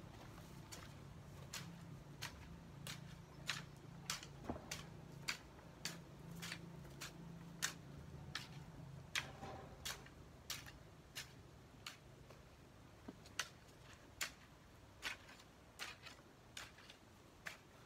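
Garden hoe chopping into soil in a steady rhythm, short sharp strikes about one and a half times a second.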